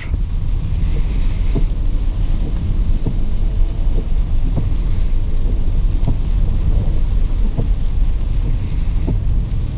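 Steady low rumble of road and engine noise heard inside the cabin of a Mercedes-Benz E320 driving on wet roads in rain, with rain on the car and scattered faint ticks.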